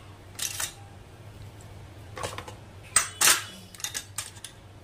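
A spoon clinking and scraping against dishes as chilli powder is added to fried peas: a few short sharp strikes, the loudest about three seconds in, followed by a few lighter ticks.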